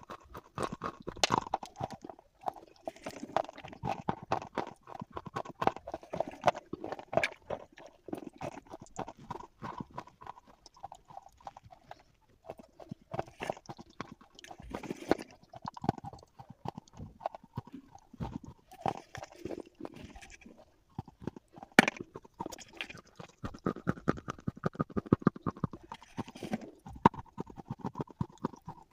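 Slate pencils being bitten and chewed close to the microphone: a dense run of sharp, brittle crunching clicks, with a couple of short pauses.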